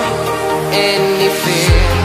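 Background electronic pop music; a deep, repeating bass beat comes in near the end.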